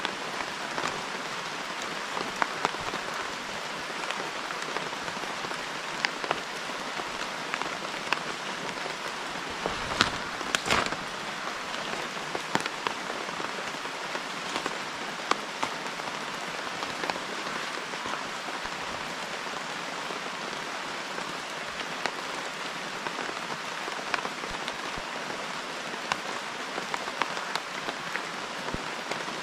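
Steady downpour of rain, with many sharp close drop strikes over the hiss; a cluster of louder hits comes about ten seconds in.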